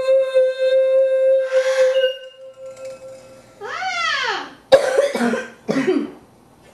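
A boy sings one long, steady high note into a wine glass for about three seconds, then a brief rising-and-falling vocal swoop. A sudden crack follows, then a few short noisy bursts as the glass shatters.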